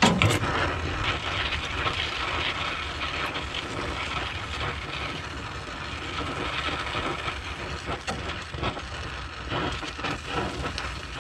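Electric arc welding on a thin sheet-steel roof brace: a steady crackle and sizzle with many sharp pops, as the weld burns through the thin metal.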